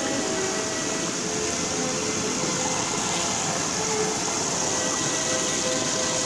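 Stream water rushing and splashing over rocks in a small cascade, a steady dense rush.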